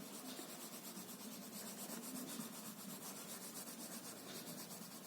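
Faint scratchy rubbing of colouring strokes on paper, as a leaf is coloured in green.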